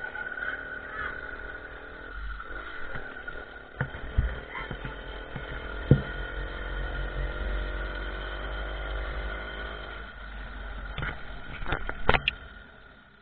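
Small 50cc motorcycle engine running while being ridden, with a low wind rumble on the microphone and several sharp knocks from bumps, the loudest about six seconds in and a cluster near the end.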